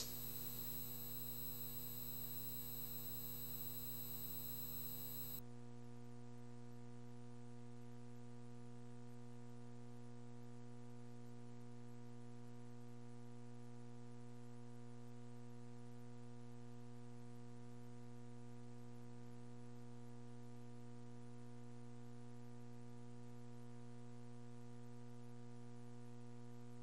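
Steady electrical mains hum with a stack of overtones and faint hiss, with no other sound; the higher overtones and hiss drop away about five seconds in, leaving the low hum.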